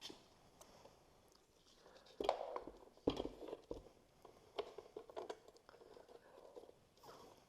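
Hands handling wiring and plastic parts: scattered light clicks and crackles, with a couple of sharper knocks about two and three seconds in.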